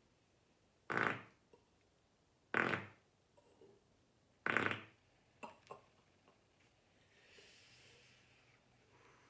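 A man passing gas: three short, loud farts about a second and a half apart, followed by a couple of small clicks and a soft breathy sound.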